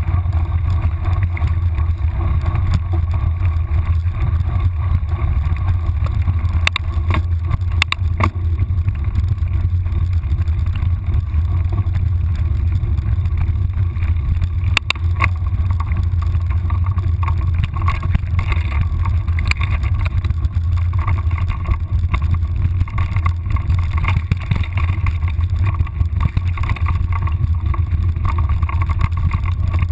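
Steady low rumble of wind and movement buffeting a moving camera's microphone, with a few sharp knocks about seven, eight and fifteen seconds in.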